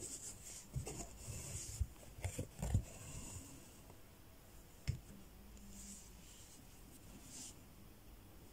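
Six-strand embroidery floss being woven under and over the stitches of a basket-weave stitch and drawn through the fabric. Faint scratchy rubbing and hiss with soft taps during the first three seconds, a sharp click about five seconds in, then a few light rustles.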